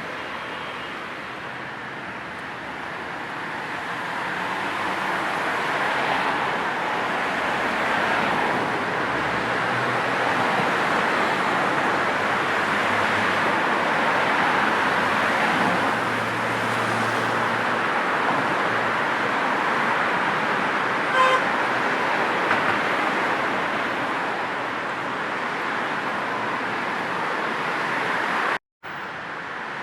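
Road traffic noise: a steady wash of passing vehicles that swells and eases, with a short car horn toot about two-thirds of the way through. The sound cuts out for a split second near the end.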